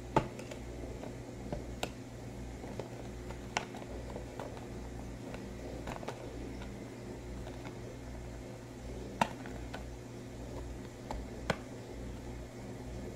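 Hands fitting a printed card sign into the slot of a toy ice cream shop's plastic awning: about six scattered sharp clicks and taps of plastic and card, over a steady low hum.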